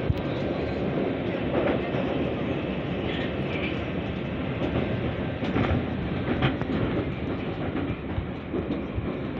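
Metro train running through a tunnel, heard from inside the car: a steady rumble of wheels on rails with a few sharp clicks from the wheels over rail joints.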